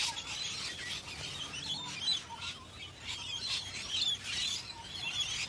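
A flock of parrots chirping, with many short, high calls overlapping throughout.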